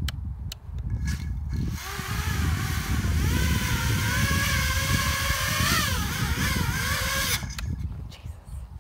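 A small racing quadcopter's motors spin up to a whine about two seconds in. The pitch climbs a second later, wavers, then cuts off abruptly about a second and a half before the end. A low rumble runs underneath throughout.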